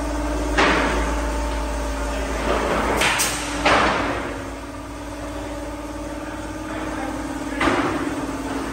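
Sharp bangs of building work, four in all at uneven gaps, the loudest about a third of the way in, over a steady mechanical hum.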